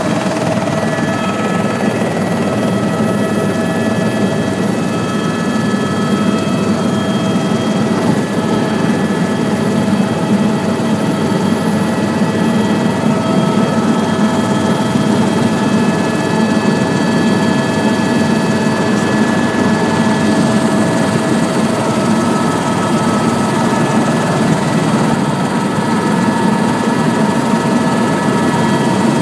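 Helicopter cabin noise in flight, heard from inside: a loud, steady drone of rotor and engine with several faint, steady high whining tones over it.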